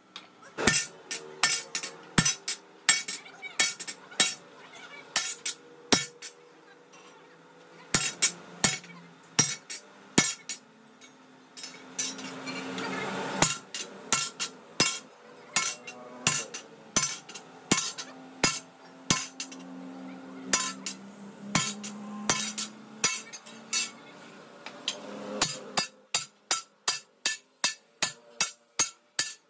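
Repeated hammer blows on metal, striking irregularly at first and then in an even run of about two a second near the end. A brief rushing noise comes about twelve seconds in.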